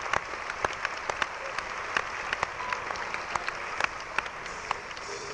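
Concert audience applauding, with many sharp individual claps standing out; the applause thins a little toward the end.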